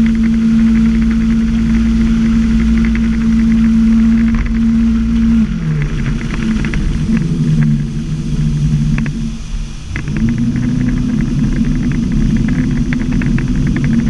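Ski boat engine running at speed over the rush of water, then dropping in pitch about five and a half seconds in as the throttle is pulled back, and climbing back to its earlier pitch about ten seconds in as the boat speeds up again.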